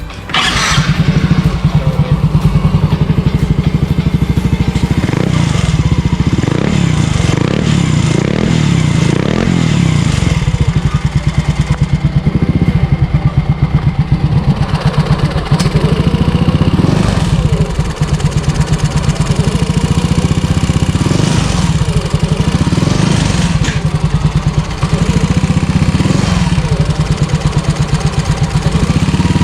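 Yamaha Mio i 125 scooter's single-cylinder four-stroke engine idling with an even, fast firing pulse, just after a complete engine overhaul.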